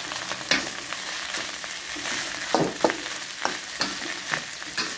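Fried rice sizzling in a hot wok as it is stir-fried with a metal ladle. The ladle clinks and scrapes against the wok several times, about once a second.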